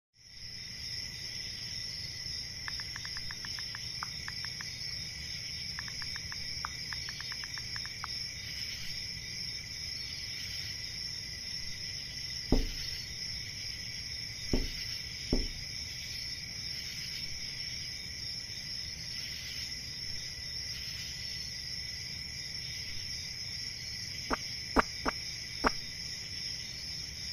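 Crickets chirping steadily as a night ambience. Two runs of quick light ticks come in the first several seconds, and three sharp knocks between about 12 and 15 seconds in, a moth bumping against the window glass.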